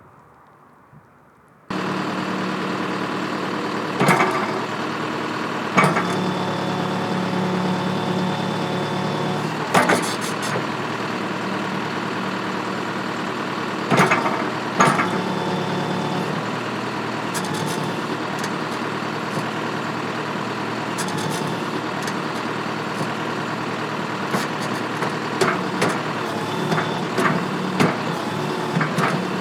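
Backhoe loader engine running steadily, coming in abruptly about two seconds in. Several sharp knocks and clanks from the machine at work, with a run of smaller clicks near the end.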